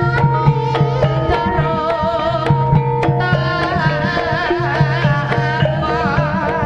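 Gamelan ensemble music for an ebeg hobby-horse dance: held, struck metallophone tones over a steady low gong tone, with regular drum strokes. A wavering melody line enters about three seconds in.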